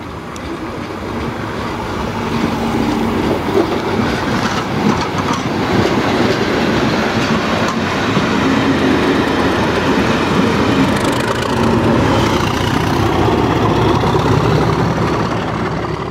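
A Class 37 diesel locomotive passing at the rear of a short test train: the coaches' wheels run over the rails, and the locomotive's English Electric V12 diesel engine joins in. The noise grows louder over the first few seconds, then stays loud.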